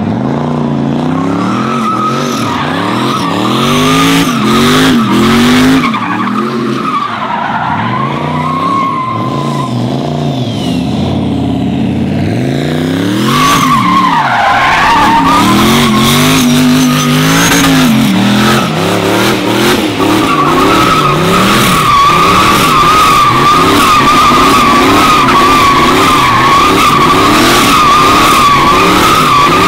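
Turbocharged pickup truck doing a burnout and donuts: the engine revs rise and fall over and over while the rear tires squeal in a steady high screech. The squeal is strongest and most constant through the second half.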